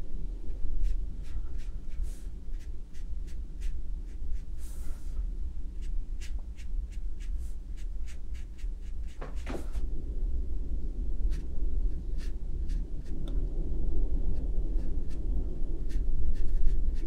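Light taps and scratchy strokes of a rigger brush on textured watercolour paper, painting fine branches: a scattered run of small ticks, with one longer swish about halfway through, over a steady low hum.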